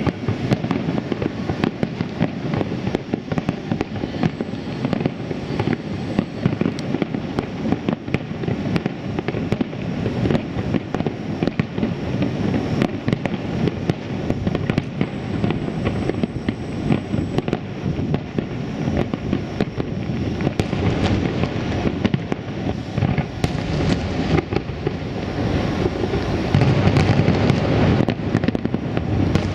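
Aerial firework shells bursting over the harbour in a continuous barrage of bangs, one hard on another, with heavier low booms piling up near the end as several shells burst at once.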